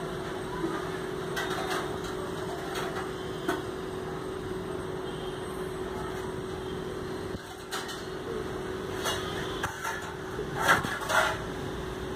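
A steady low hum over background noise, with a few scattered knocks or taps, the loudest two near the end.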